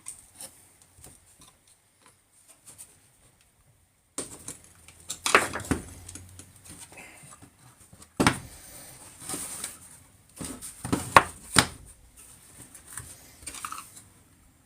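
Small parts of a cordless angle grinder and hand tools being handled during disassembly: scattered sharp clicks, knocks and scrapes of hard plastic and metal. The clatter starts about four seconds in, with the loudest knocks around the middle and after it.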